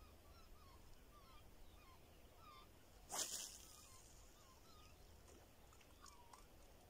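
Faint, repeated short chirping bird calls over quiet open-air ambience, with one brief swish about three seconds in.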